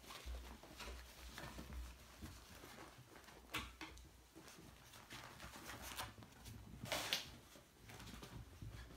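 Havanese puppies playing on mats and carpet: faint scuffling and patter of small paws, with a few short sharp clicks or knocks, the loudest about seven seconds in.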